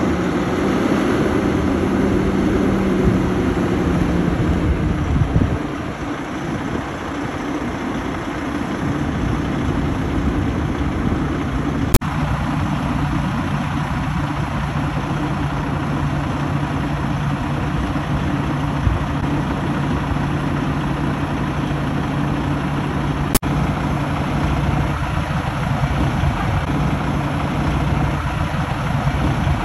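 Heavy truck's 605-horsepower Cummins diesel idling with a steady low hum, its pitch settling slightly lower partway through. Two sharp clicks cut in briefly.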